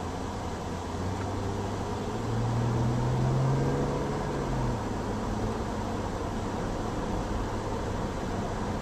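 Car engine and road noise heard from inside the cabin as the car pulls away and picks up speed. The engine note rises and gets louder about two to four seconds in, then falls back to a steady cruising drone.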